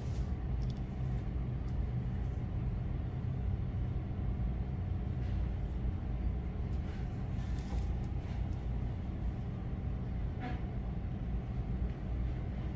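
Steady low motor rumble, with a few faint light ticks.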